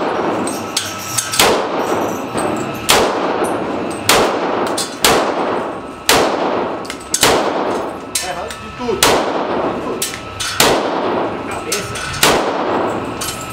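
Handgun fired shot after shot, about ten rounds roughly a second or so apart, each sharp crack trailing off in the echo of an indoor shooting range.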